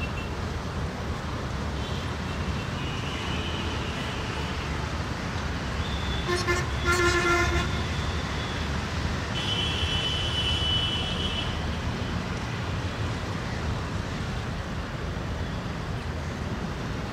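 A horn blows once for about a second and a half, about six seconds in, over a steady low rumble.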